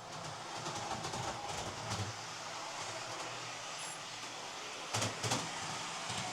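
Hornby OO gauge Class 43 HST model's motor running on the track with a steady mechanical whirr and brief high-pitched whistles, two sharp clicks about five seconds in. The squeal comes as the loco slows as if its brakes were on; the repairer suspects a dry bearing on the motor or a worm gear needing lubrication, or else a failing motor.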